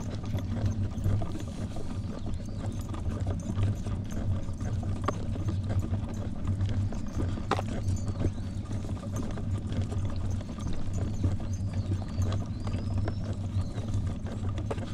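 Footsteps on a paved sidewalk while walking, over a steady low rumble.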